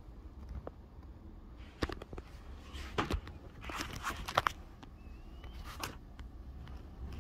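A few short knocks and clicks, bunched around the middle, over a low steady rumble.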